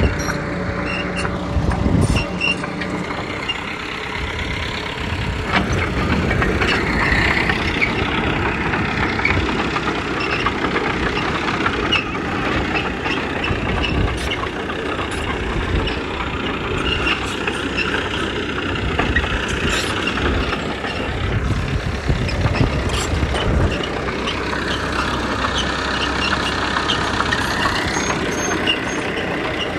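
Diesel engines of heavy earthmoving machinery, a small bulldozer and dump trucks, running continuously, with scattered knocks and clanks and a whine that rises near the end.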